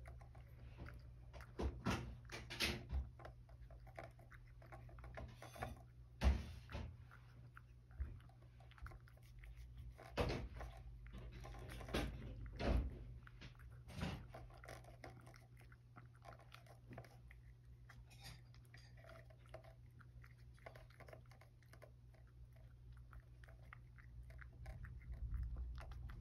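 A cat chewing carrot pieces topped with bonito flakes, irregular crunchy bites with the loudest ones in the first half and softer chewing after.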